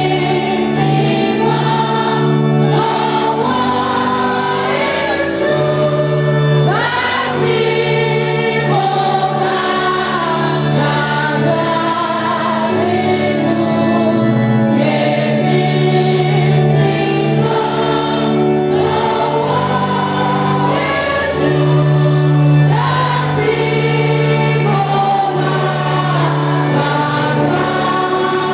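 Choir or congregation singing a gospel hymn with instrumental accompaniment, held low notes under the melody.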